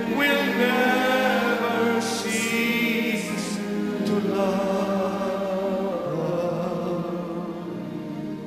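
Choir and congregation singing a slow gospel worship song, the voices held in long sustained notes, growing gradually quieter near the end.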